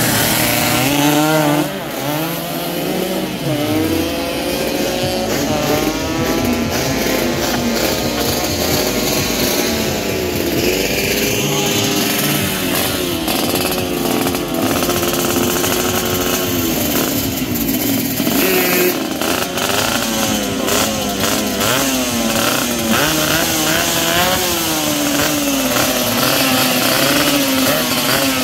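Two-stroke drag motorcycle engines being revved hard and repeatedly, their pitch rising and falling in quick throttle blips. Several engines overlap.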